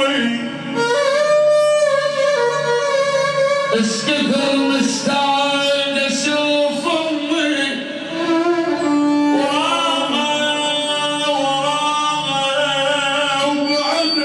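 A man singing a sad Arabic song in long, held, ornamented notes over instrumental accompaniment.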